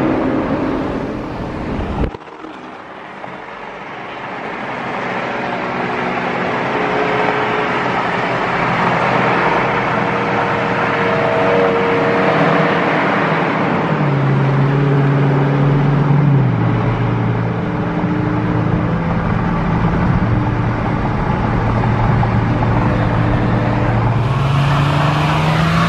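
Car engine and road noise inside a moving car on a freeway. A steady engine note drops in pitch about two-thirds of the way through, as at an upshift, and rises again near the end under a louder hiss. The sound cuts abruptly to quieter about two seconds in, then builds back up.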